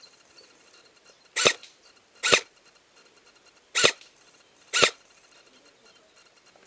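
Four short, sharp barks, coming in two pairs about a second apart.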